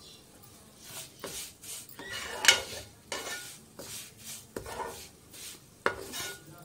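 A metal spoon stirring and scraping in a pot of milk, with repeated clinks and scrapes against the pot from about a second in, one of them a sharp ringing clink. The milk is being stirred to keep it from sticking to the bottom.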